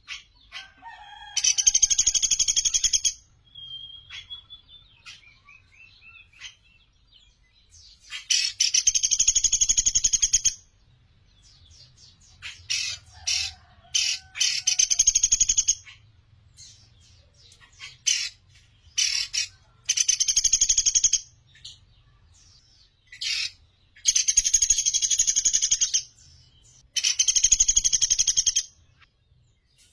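Pelatuk beras, a small woodpecker, calling in a cage: about seven long, loud, high-pitched fast trills, each one to three seconds long, with short chirps and ticks in the gaps between them.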